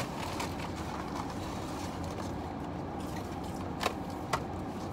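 Steady low hum of a parked car's cabin, with two short sharp clicks a little under a second apart near the end.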